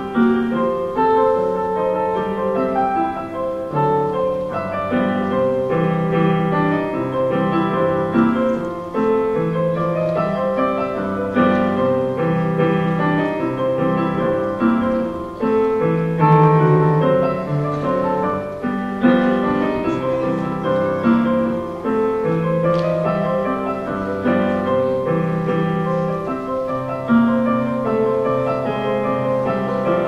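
Solo piano piece: a melody played over held chords, without pause.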